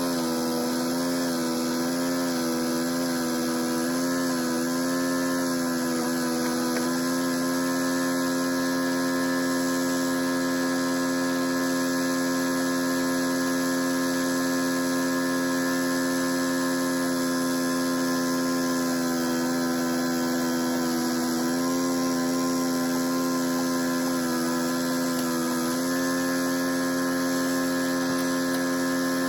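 Excavator's diesel engine running steadily as it works, a constant pitched drone. Its pitch wavers for the first several seconds and again around twenty seconds in.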